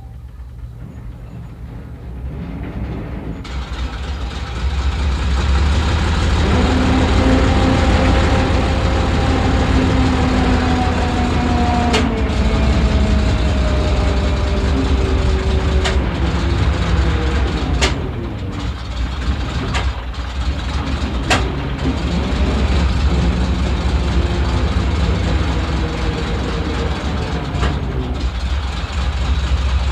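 Mark V tank's Ricardo six-cylinder petrol engine heard from inside the hull, building from a low rumble to a heavy running note over the first few seconds after starting. It then runs on with its pitch slowly sinking toward tickover, broken by about five sharp misfire bangs.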